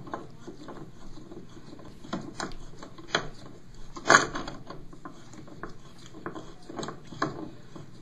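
Channellock pliers gripping and turning the stem of a toilet supply shutoff valve that has no handle, metal scraping and clicking in irregular bursts as the water is shut off to the tank. The sharpest click comes about four seconds in.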